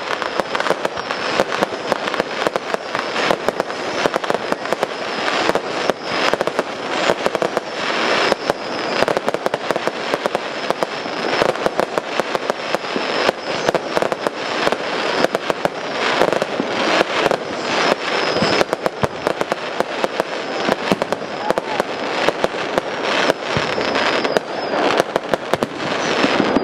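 Fireworks display: a dense, continuous barrage of bangs and crackling as aerial shells burst in quick succession.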